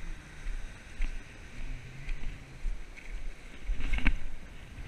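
Strong wind buffeting the microphone in irregular gusts over the wash of breaking surf, with a louder burst about four seconds in.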